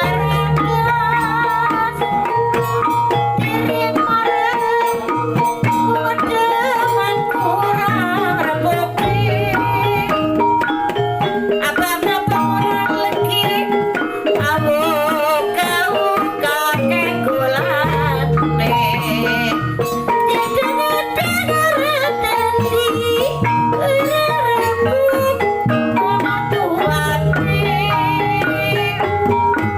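Loud Javanese reog-style gamelan music: steady drumming under a wavering, ornamented melody line.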